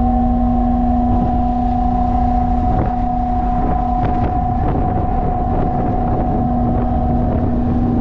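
A ship's machinery humming steadily, with two clear tones over a heavy, uneven low rumble of wind buffeting the microphone.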